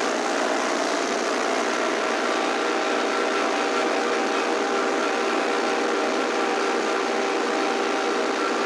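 Massey Ferguson 1020's small 67 ci (1.1 L) diesel engine running steadily under load while pulling a disc harrow through a field.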